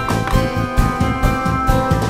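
Upbeat background music with a steady beat and held synth notes.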